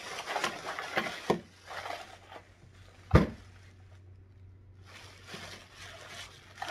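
Thin plastic shopping bag crinkling and rustling as it is pulled open by hand, with one sharp snap about three seconds in. A faint low hum runs underneath.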